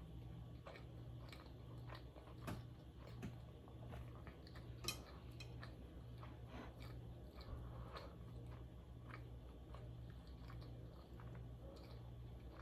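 Close-miked chewing, with soft wet mouth clicks and smacks and a few sharper clicks, over a faint low hum.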